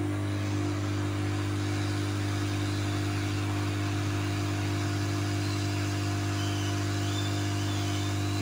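Hot air rework station's blower running with a steady whir and hum, desoldering a shorted shunt voltage regulator from the TV main board.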